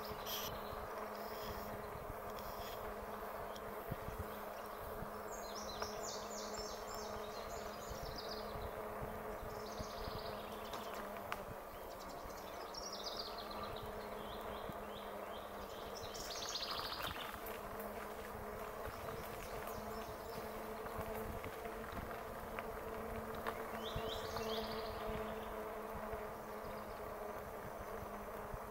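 Electric bike's motor humming steadily at one pitch, a buzzing whine, over a rough low rumble from the ride.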